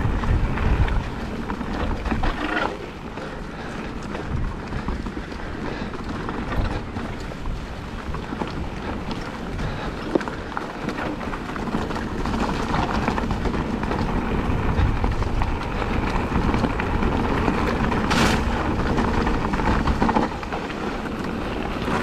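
E-mountain bike riding down a rocky trail: tyres rumbling over rocks, with scattered sharp knocks and rattles, and wind buffeting the microphone.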